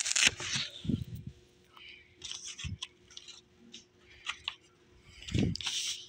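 Paper DVD cover insert being torn and crinkled by hand in several short bursts, with a few dull bumps from handling.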